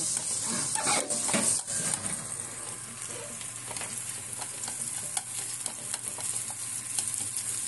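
Food frying in hot oil in a pan, a steady sizzling hiss with many small pops.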